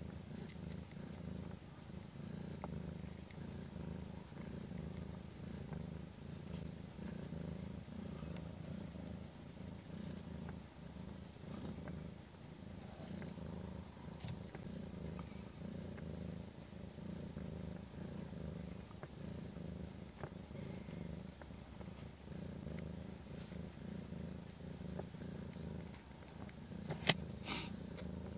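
Steady low purring from a mother cat nursing her 12-day-old kittens, with a sharp click near the end.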